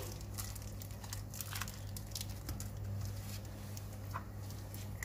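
Hands turning and rubbing raw fish fillets in lemon juice in a glass baking dish: soft wet squishing with light scattered taps and clicks, over a steady low hum.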